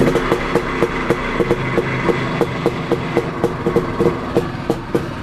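IZH motorcycle's two-stroke engine running steadily, its exhaust beating in a regular, even rhythm.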